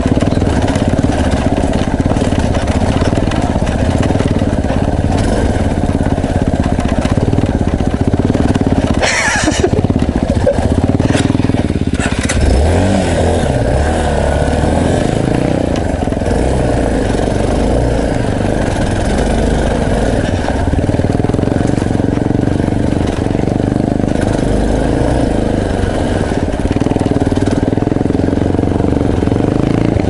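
Trail motorcycle engine running at low speed on a rough dirt track, its note rising and falling with the throttle. A sharp scraping knock comes about nine seconds in, and the engine note wavers a few seconds later.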